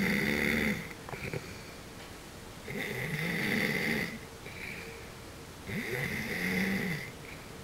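Snoring in a slow, even rhythm. The end of one snore is followed by two more about three seconds apart, each just over a second long, with a pitch that rises and falls.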